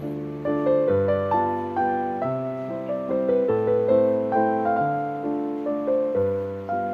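Background piano music: a gentle melody of single struck notes, each fading out, about two to three a second over lower chords.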